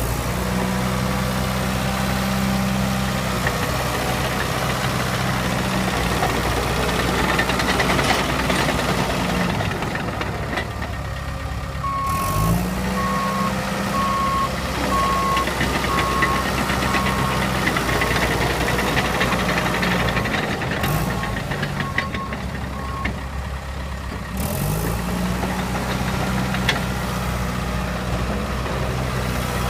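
Dresser TD9H crawler dozer's diesel engine running, its speed dropping and then picking back up twice. A reversing alarm beeps at a steady pace, about once a second, through the middle.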